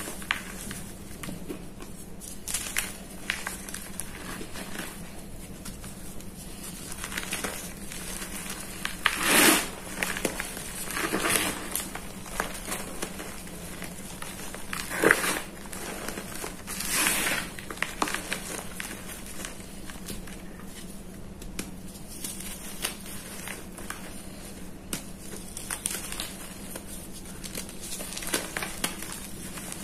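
Hands crushing and crumbling soft blocks of pink reformed gym chalk into powder: a steady crackly crunching, with several louder crunches in the middle.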